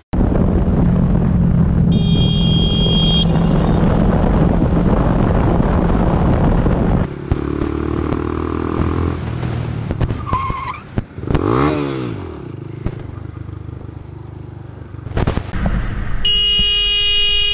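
Motorcycle engine and road noise while riding, the engine note rising and falling with the throttle. A short high horn sounds about two seconds in, and a long horn blast starts near the end.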